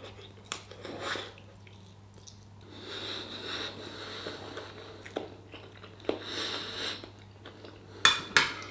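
A man chewing a mouthful of stir fry with noodles, cashew nuts and chorizo, with breaths through the nose. Near the end, a short sharper clatter of a metal spoon against the plate.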